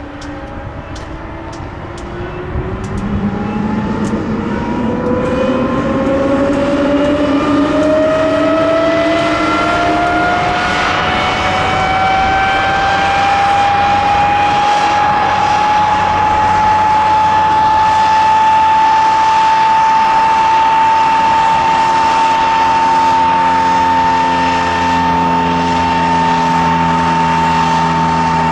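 de Havilland Vampire T.11's Goblin turbojet starting up: a whine rises steadily in pitch and grows louder over about fifteen seconds as the engine spools up, then holds at a steady pitch as it settles at idle. A few sharp ticks sound in the first couple of seconds.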